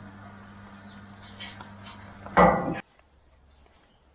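A steady low machine hum that cuts off abruptly about three seconds in, just after a short loud sound.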